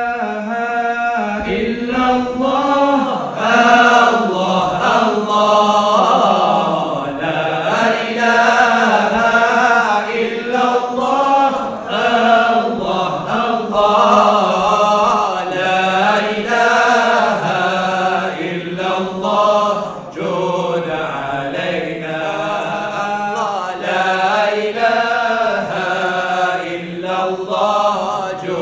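Male nasheed group chanting a devotional nasheed together in unison, one melody that rises and falls in long held phrases.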